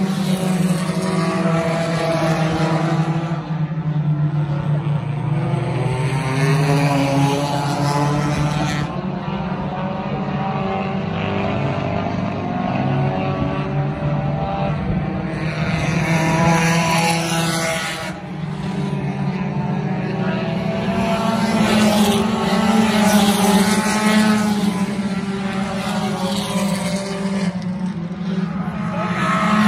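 Dirt-track compact race cars racing in a pack, several engines running hard at once. Their engine notes swell and fade as the cars come around the oval and pass, loudest around the middle and again past the two-thirds mark.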